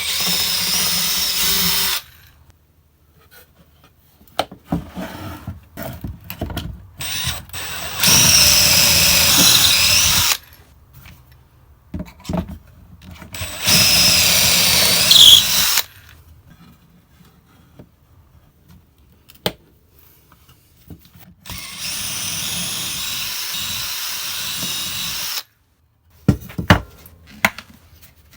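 Power drill run in four bursts of a few seconds each, working into wood, with the last burst the longest. Short knocks and clicks of handling the wood and tool come between the bursts, with a few sharper clicks near the end.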